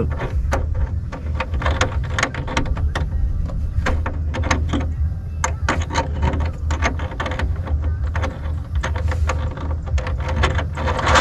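Many irregular light clicks and taps of a metal conduit fitting and nut being handled and threaded by hand against a metal jon boat hull, over a steady low rumble.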